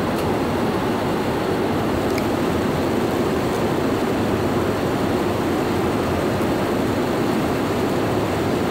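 Steady in-flight cabin noise of a jet airliner: an even, unbroken rush of engine and airflow noise.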